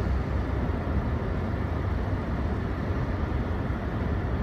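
Steady low rumble of car engine and road noise, heard from inside the cabin.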